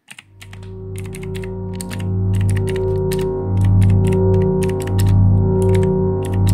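Computer keyboard typing in quick, irregular runs of keystrokes, which stop near the end. Under it, music fades in from silence: a low, steady drone with held tones.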